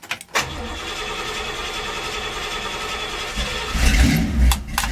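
1966 Chevy's carbureted engine cranking on the starter for about three seconds, then catching and firing up with a loud low rumble. A cold start on the choke after several pumps of the gas pedal.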